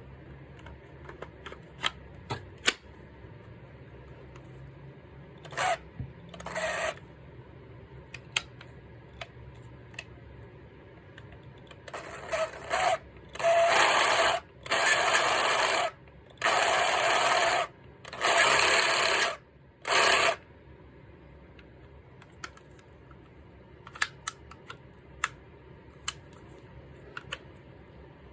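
Makita JR184D 18 V cordless reciprocating saw run in several short trigger bursts of about a second each, with handling clicks before and after; the saw is a junk unit that makes an abnormal noise.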